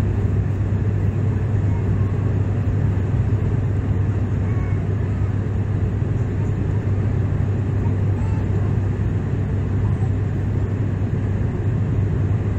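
Steady in-flight cabin noise of a jet airliner: the low, even drone of engines and airflow heard inside the cabin.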